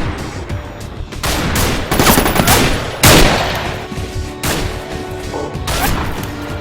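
Gunfire-like bangs, about six of them, irregularly spaced and each with a long fading tail, the loudest about three seconds in, over background music.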